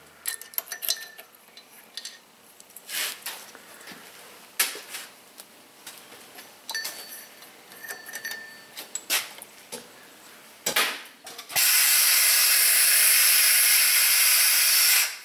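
Small metal clicks and clinks as valve keepers and spring retainers are worked out of a Honda Ridgeline cylinder head under a valve spring compressor. About twelve seconds in, a loud, steady hiss of compressed air from the air float table starts, lasts about three and a half seconds, and cuts off sharply.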